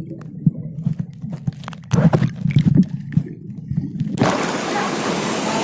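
Underwater sound: a muffled low rumble with bubbling and gurgling clicks, with a louder burst of bubbles partway through. About four seconds in, the recorder breaks the surface and the steady hiss of a waterfall's rushing water cuts in suddenly.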